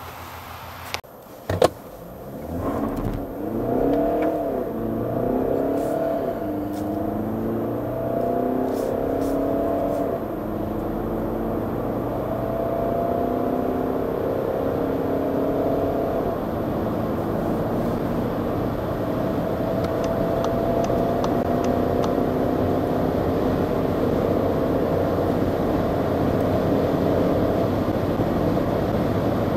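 VW Golf 8's 2.0 TDI four-cylinder turbodiesel, heard from inside the cabin under full acceleration: the engine note climbs through each gear and drops back at every upshift of the automatic gearbox, the gears lasting longer as the car passes about 125 and then 180 km/h. A few sharp clicks and one loud knock come about a second in, before the pull starts.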